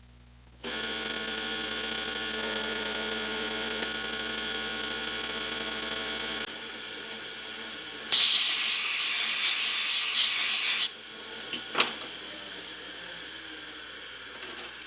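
Metal lathe starts and runs steadily for about six seconds, then stops. It is followed by a loud, steady hiss of compressed air for about three seconds and a single sharp click.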